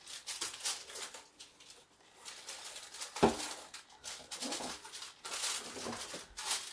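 Plastic cling wrap crinkling and rustling as it is pulled off the roll and stretched around an aluminium foil baking pan, with a sharp crackle about three seconds in.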